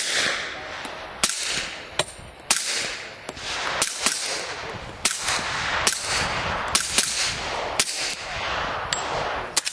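A string of about ten suppressed gunshots, roughly one a second, each a sharp crack followed by a decaying echo.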